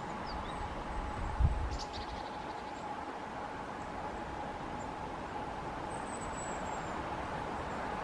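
Steady outdoor background noise with a faint hum, a few faint high bird chirps in the first two seconds and a thin high whistle about six seconds in. A short low thump about one and a half seconds in is the loudest sound.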